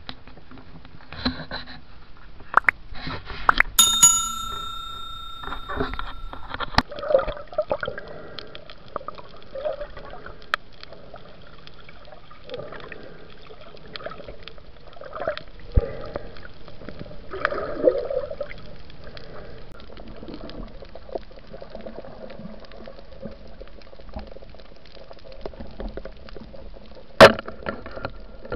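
Muffled underwater sound of a diver's camera in the sea: irregular gurgling and bubbling with scattered knocks. A short ringing tone sounds about four seconds in, and there is a sharp knock near the end.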